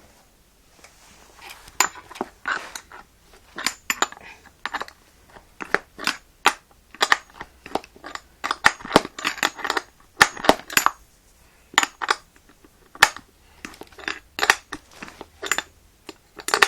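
Spanner being worked on the bolts of a railed BMX seat clamp to tighten it, giving irregular metallic clicks, clinks and short scrapes of tool on nut and clamp, some sharper than others.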